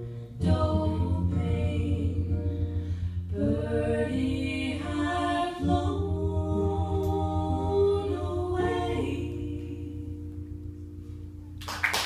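Live song ending: two voices singing together in harmony, the last phrase fading out about ten seconds in. Audience applause breaks out just before the end.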